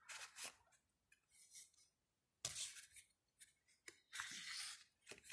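Faint paper sounds as the pages of a small photo book are turned by hand: a few short rustles and flicks, a second or two apart.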